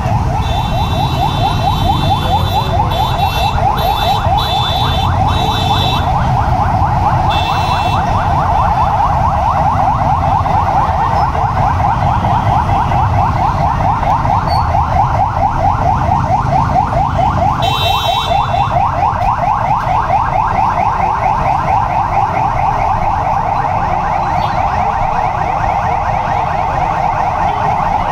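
Police escort vehicle siren sounding a fast, continuous electronic warble. Short shrill tones cut in several times over the first few seconds and once more later, over a low rumble of street noise.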